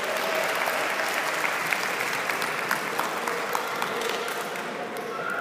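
Applause from a group of people, many hands clapping steadily.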